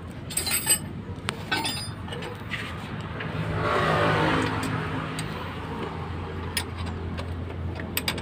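A motor vehicle engine running, swelling about three to four seconds in and then holding steady. Short metallic clicks of hand tools and bolts are heard on and off.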